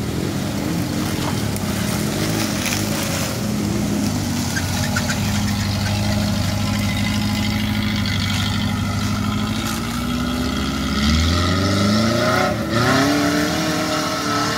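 Engine of a modified Suzuki off-road jeep, under load as it climbs a steep dirt slope. It runs steadily at low revs, then revs up in rising surges about three-quarters of the way in.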